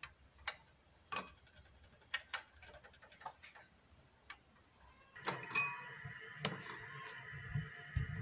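Scattered light clicks and taps of a plastic slotted spatula against a nonstick pot as fried gulab jamun are moved around in sugar syrup. About five seconds in, a steady faint hum sets in, with a few more taps and soft knocks.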